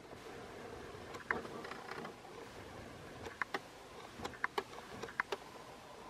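Spartan Electric Arctic Aire all-metal three-blade box fan running with a steady rush of air. A scattering of sharp, irregular clicks sits over it, the loudest sounds here.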